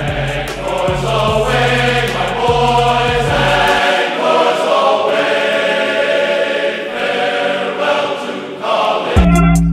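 Background music: a choral passage of voices singing over sustained chords. The bass drops out about four seconds in, and a heavy beat comes back in just before the end.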